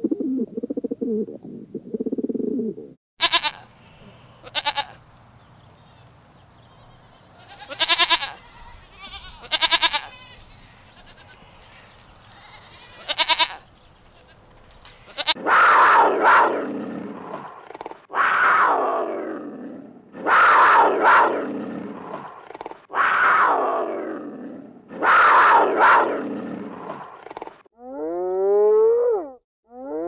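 Farm animal calls in succession: low repeated calls for the first three seconds, then a few short sharp calls, then five long falling calls of about two seconds each, and rising calls near the end.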